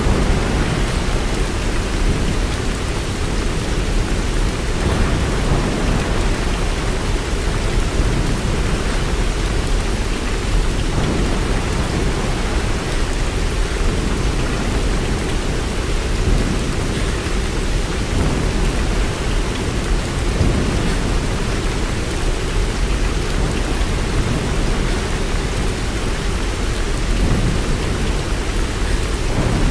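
Steady rain falling, with a continuous deep rumble underneath.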